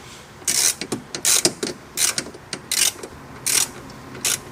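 Ratchet wrench clicking in short runs, about six strokes, as it backs out a 10 mm bolt.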